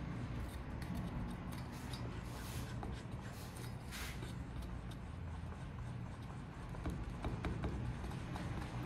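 Silicone spatula stirring a thin flour-and-water batter in a stainless steel bowl: soft scrapes and sloshes with faint clicks, over a low steady hum.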